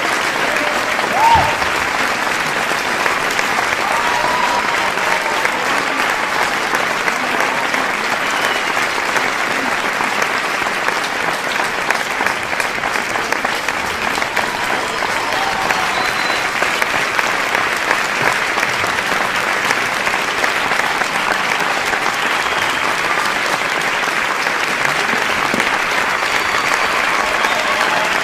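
Large audience clapping steadily, a dense continuous applause, with a few scattered shouts and cheers from the crowd, one louder near a second in.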